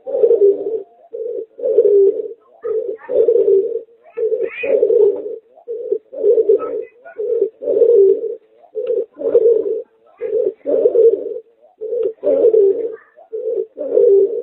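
Domestic pigeon × turtle dove hybrid (merpater) cooing over and over: a string of low coos, short and longer ones alternating with only brief pauses between them.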